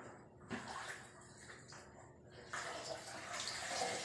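A cotton cloth being rinsed by hand in a plastic basin of water and lifted out to be wrung, with splashing water that grows louder about halfway through.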